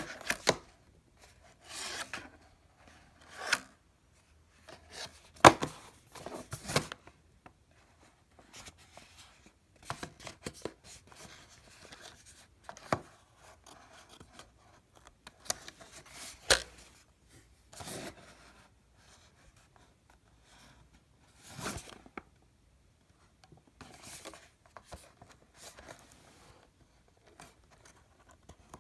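Fingers handling a cardboard retail box with a plastic window: irregular rubbing and scraping against the cardboard, broken by a few sharp clicks.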